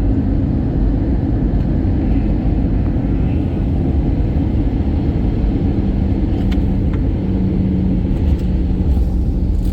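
Airliner cabin noise during the landing at Abha: a loud, steady low rumble of the engines and airflow, heard from inside the cabin. A steady hum comes in about halfway through.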